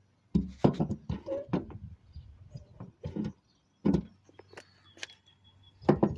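Irregular clicks and knocks of a minivan sliding-door roller assembly and its cables being handled and fitted by hand: short clusters of clattering hard parts with brief pauses between them.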